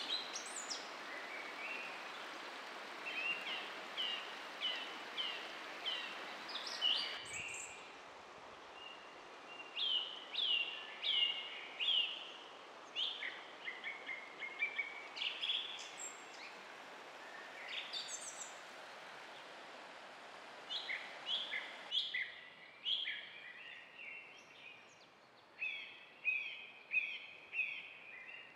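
Songbirds singing, repeated short chirping phrases that come every second or so, over a steady rushing of river water. The rushing drops to a lower level twice, at cuts about a quarter and three-quarters of the way through.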